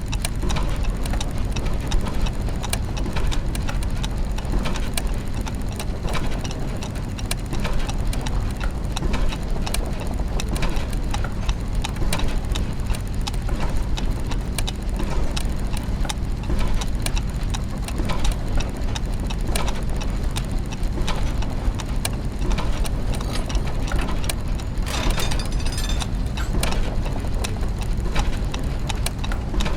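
Soundscape of clockwork mechanisms and gears turning: dense ticking and ratcheting clicks over a steady low mechanical hum.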